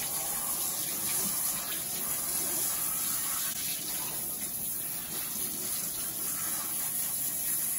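Steady water running from a handheld shower sprayer, rinsing a wet dog and splashing into a bathtub.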